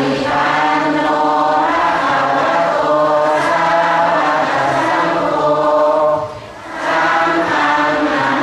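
Buddhist chanting: several voices reciting together in long, drawn-out notes, with a short break for breath about six seconds in.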